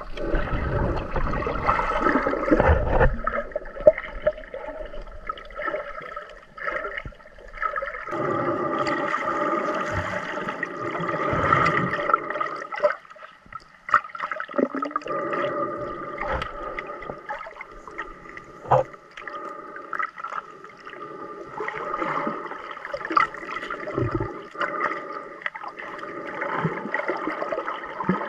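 Underwater sound heard through a diving camera: muffled swirling and gurgling of water as a snorkeler moves and digs into the sandy seabed, with occasional short knocks and a few faint steady tones throughout.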